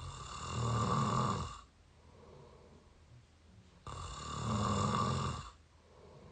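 A person snoring through an open mouth, close to the microphone. Two long snores, each about a second and a half, come about four seconds apart, with quieter breathing noise between them.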